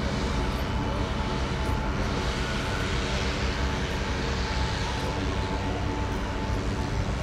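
Stadler WINK bimodal trains standing at the platform with their diesel power modules running: a steady low engine hum with a hiss that swells in the middle.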